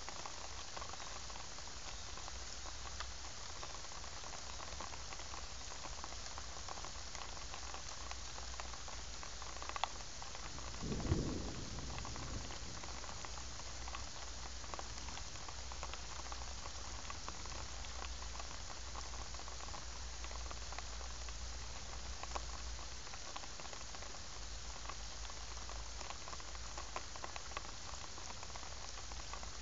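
Heavy rain falling steadily on a pond's water surface, an even hiss of many drops. About eleven seconds in comes a brief low rumble.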